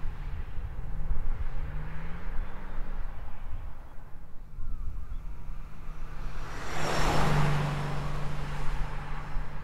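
Honda Stepwagon Spada Hybrid's 2.0-litre four-cylinder engine running through an HKS Legamax Premium aftermarket exhaust as the minivan drives past, a steady low engine note throughout. Tyre and road noise swells as the van passes close about seven seconds in, the loudest part.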